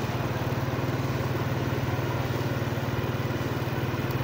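A motorbike engine running steadily at low speed, with a fast, even pulse.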